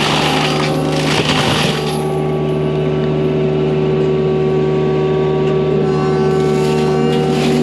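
Excavator-mounted Prinoth forestry mulcher running at working speed: a steady, loud droning hum with the excavator's diesel under it. Rough, noisy grinding comes in over the first two seconds and again near the end as the mulcher drum chews into brush and wood.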